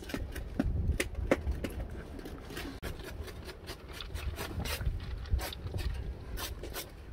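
Scraping and scattered light knocks of a metal cooking pot being handled as steaming cooked rice is tipped out of it into a plastic colander, over a low rumble.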